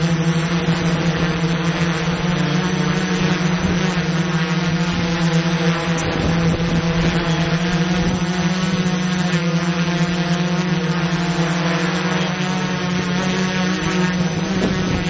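Small quadcopter drone's propellers humming steadily in flight.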